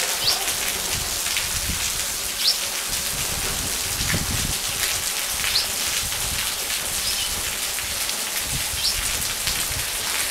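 Heavy storm rain and rainwater pouring off roofs and spouts: a steady splashing hiss, with short high rising notes every second or two.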